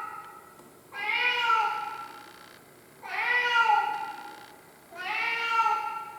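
Domestic cat crying with loud, drawn-out meows, three in a row about two seconds apart, each rising and then falling in pitch.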